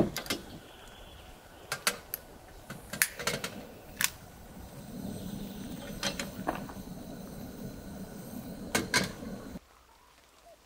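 Light metal clinks and knocks of an aluminium camp cookset being handled: pot, lid and pot gripper tapping against each other and the stove, a dozen or so separate strikes. From about halfway a low steady rush runs for a few seconds, then the sound drops away near the end.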